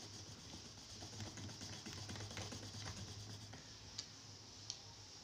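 Cutter blade scraping and scoring a thin clear plastic tube, a run of faint small clicks, with two sharper clicks near the end. A low steady hum runs underneath.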